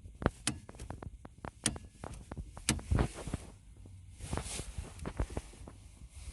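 Irregular clicks and knocks from the car's hood being popped open: the hood release and latch being worked, with handling and footstep noises between. A few sharper knocks stand out.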